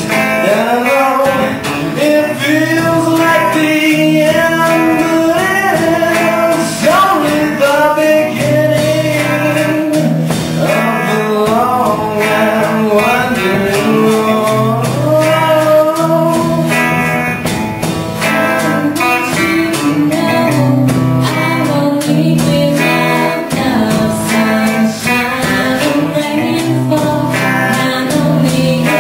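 Live song: voices singing a melody over a strummed guitar.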